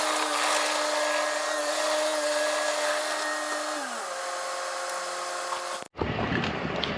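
Bobcat T630 compact track loader's diesel engine running at high throttle with a steady whine, then dropping to a lower pitch about four seconds in as it is throttled down. Near the end the sound cuts off abruptly and is replaced by different outdoor noise.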